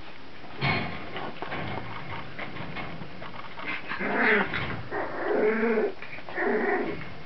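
Young Brittany puppies, about three weeks old, vocalising: a few short, pitched growls and whines in the second half, the longest lasting about a second.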